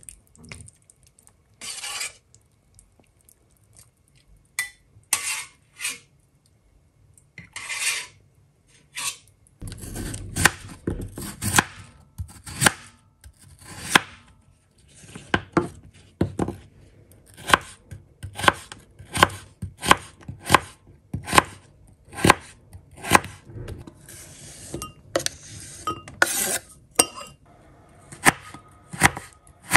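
A chef's knife chops vegetables on a wooden cutting board, with carrot being cut into strips by the end. The knocks come at a steady rate of about one and a half a second, starting about ten seconds in. Before that there are a few scattered short scraping and clattering sounds.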